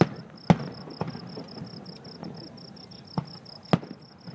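Fireworks going off: about five sharp bangs, the loudest about half a second in and near the end. Under them, crickets chirp in a steady, rapid pulse.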